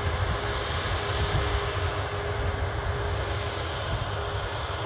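Boeing 737 MAX 8's CFM LEAP-1B turbofan engines running on the runway: a steady, even jet rumble with a thin constant hum.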